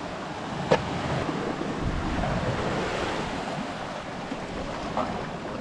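Sea waves washing over a rocky, pebbly shore, swelling in the middle and easing off, with wind on the microphone. A sharp knock against rock about a second in and a lighter one near the end.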